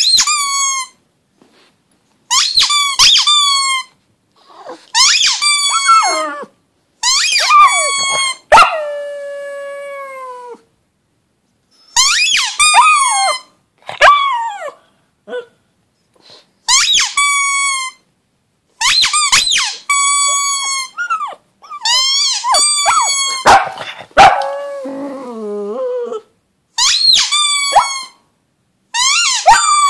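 A pug howling: a string of about a dozen high-pitched cries, each a second or two long, with short pauses between them. One cry about a third of the way in trails off, falling in pitch, and a lower, grumbling call comes near the end.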